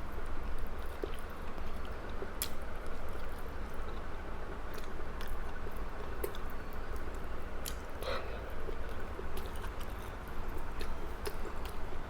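A person chewing food, with soft wet mouth clicks scattered throughout.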